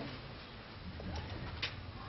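Room tone: a steady low hum, with one short sharp click about one and a half seconds in.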